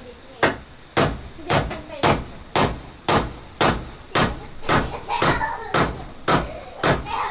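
Steady hammering, about two sharp strikes a second, of a hammer on the wood during construction of a wooden house railing.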